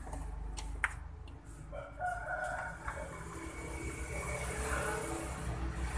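A few small clicks as a VGA cable's plug is pushed into the motherboard's video port, then, from about two seconds in, a drawn-out, wavering animal call in the background lasting about three seconds.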